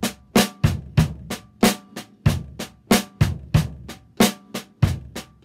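Snare drum played with sticks in a slow, even Train Time pattern, about three strokes a second with the snare ringing after each, and a kick drum thudding beneath on some of the beats.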